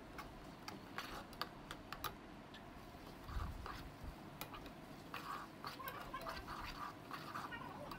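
Onions, spices and curry leaves frying in hot oil in a pan, giving a faint, irregular crackle of small pops.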